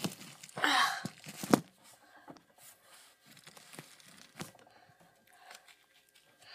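Rustling and scraping from a handheld phone being moved against surfaces. It is loudest about a second in, with a sharp knock just after, then fainter scattered clicks and rustles.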